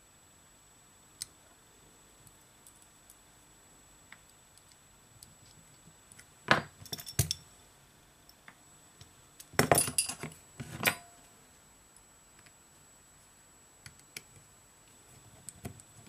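Small hard objects clinking and clattering as they are handled on a workbench: two short bursts of clatter a few seconds apart, the second louder, with scattered light clicks between.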